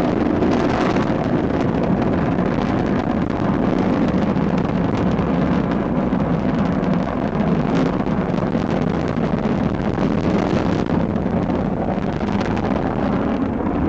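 Rocket engines during a launch: a steady, crackling rumble, heaviest in the low end.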